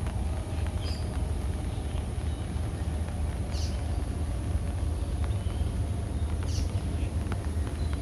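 A steady low rumble, with three faint, brief high bird chirps: about one, three and a half and six and a half seconds in.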